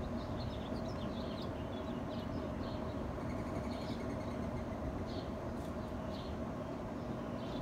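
Small birds chirping: many short, high calls scattered throughout, with a faint rapid trill about halfway in, over a steady low rumble and faint hum.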